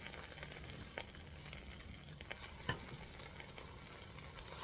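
Grilled cheese sandwiches sizzling lightly on an electric griddle, with two sharp clicks of a slotted spatula against the griddle, one about a second in and a louder one near the middle.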